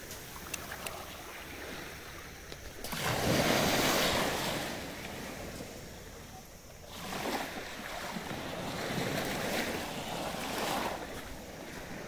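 Small waves washing up over the sand at the shoreline and draining back. One swell rises about three seconds in and dies away by about six seconds, and a second, softer one follows from about seven to eleven seconds.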